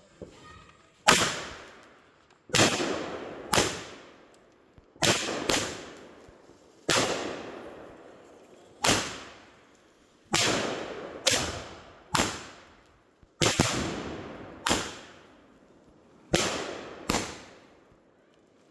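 Multi-shot consumer fireworks cake going off in a series of about fourteen loud bangs, one every second or so, each trailing off after its report.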